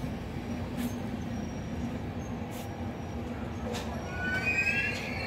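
Trenord passenger train rolling slowly past along the platform: a steady low rumble and hum with a few faint knocks from the wheels. About four seconds in, a high squeal starts from the wheels as the arriving train slows.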